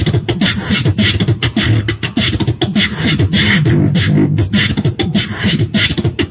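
Fast beatboxing into a handheld microphone, amplified through a portable speaker: rapid snare and hi-hat clicks over a low vocal bass line that steps up and down in pitch.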